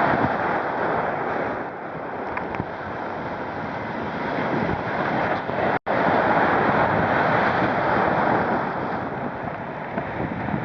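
Ocean surf breaking and washing on a beach, a steady rushing that swells and eases, with wind buffeting the microphone. The sound cuts out for an instant a little before halfway.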